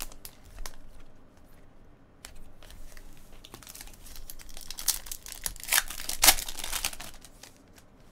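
Foil trading-card pack wrapper crinkling and cards being handled, in irregular crackly rustles, with a louder run of crinkling about five to seven seconds in.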